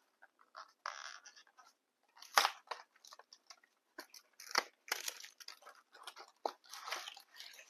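Hand-handling sounds of cookie dough on a baking tray: scattered clicks and taps with short crinkly rustles, the loudest a sharp tap about two and a half seconds in, as a ghost-shaped dough piece is pressed onto a cookie.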